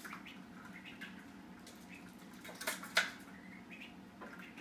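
Ducklings peeping faintly and paddling in a shallow metal pan of water, with two sharper knocks about three seconds in.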